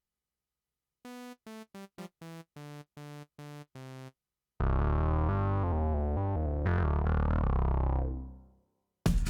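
Synthesizer played on its own: after a second of silence, a run of about ten short staccato notes, then a louder held chord with a sweeping up-and-down filter movement that fades out; the full track cuts back in near the end.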